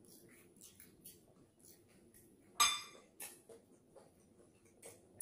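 Close-up eating sounds: small wet chewing and mouth clicks while fried eel is eaten by hand, with one clear clink of glass about two and a half seconds in, as the glass serving dish or sauce bowl is struck.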